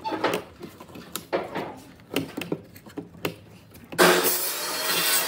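Thin wooden slats knocking and clicking as they are pushed and adjusted by hand in a slatted wooden frame, a handful of separate knocks over the first few seconds. About four seconds in, a loud steady hiss starts and becomes the loudest sound.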